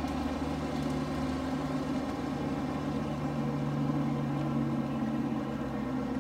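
Dodge Charger SRT Hellcat's supercharged 6.2-litre HEMI V8 running steadily at low revs, with a deep, even exhaust note and no revving.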